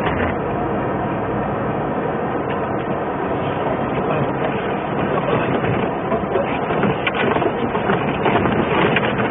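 Truck driving on a snowy highway: a steady rumble of engine and road noise, with irregular rattles and knocks that grow more frequent from about halfway through.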